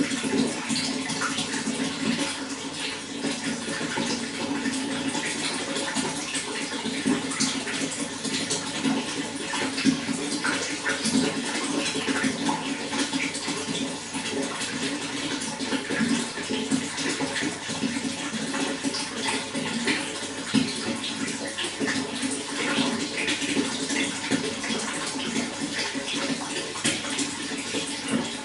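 Running water flowing steadily: an even rush with many small splashes and drips scattered through it.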